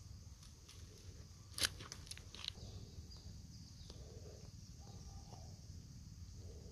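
Faint crackles and snaps of dry leaves and twigs being handled on the ground, the sharpest about one and a half seconds in, over a steady low outdoor background.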